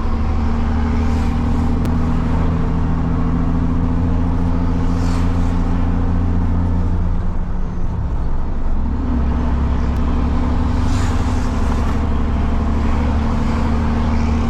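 Diesel truck engine with a straight-through exhaust, running steadily under load and heard from inside the cab. About halfway through, the engine note drops away briefly, then picks up again and runs steadily once more.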